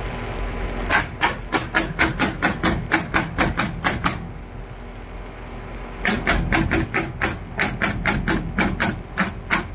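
Pneumatic nail gun driving nails into wooden fence pickets in two quick runs of shots, about five a second, with a pause of about two seconds between them.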